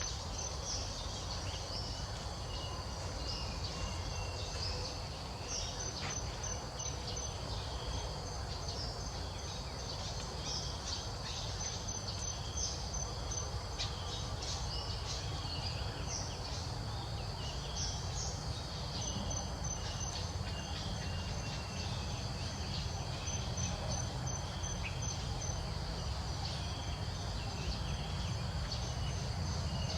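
Ambience of many small birds chirping and insects trilling in fast pulses, over a steady low rumble.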